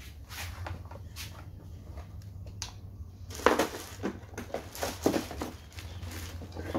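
Clear plastic wrapping crinkling and rustling as a boxed rotary hammer drill is handled in it, with light knocks of the tool's plastic housing. The rustling is sparse at first and turns dense and crackly about three and a half seconds in, over a steady low hum.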